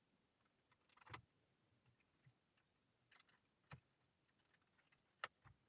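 Faint, scattered clicks and knocks of plastic interior trim and wiring connectors being handled, about four sharp clicks over several seconds with the last near the end the loudest.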